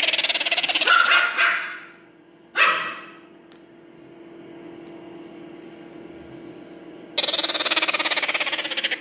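Hand-fed parrot chicks, a maritaca and a blue-fronted amazon, giving loud, rapidly pulsing begging calls while being fed cornmeal porridge from a finger. There is a call of about two seconds at the start, a short one about three seconds in, and a longer one near the end.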